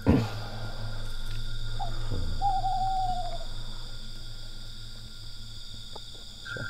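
An owl hooting: one wavering call of about a second, slightly falling, about two and a half seconds in, with a shorter note just before it. Under it is a steady high drone of night insects, and a sudden thump falling in pitch comes at the very start.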